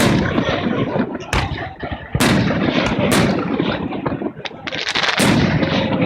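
Fireworks display: aerial shells bursting with sharp bangs about once a second, over a continuous rumble and crackle of further bursts.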